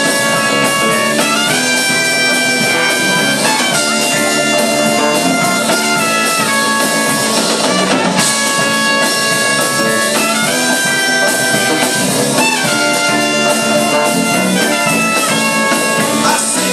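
A band plays an instrumental break without vocals, with brass horns carrying the melody in held notes joined by short upward slides over the rhythm section.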